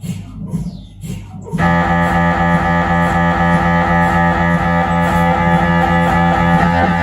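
Siemens Magnetom Avanto 1.5 T MRI scanner's gradient coils sounding during a scan: a rhythm of short falling chirps that switches suddenly, about a second and a half in, to a loud, steady, buzzing drone with a rapid pulse, as a new imaging sequence starts.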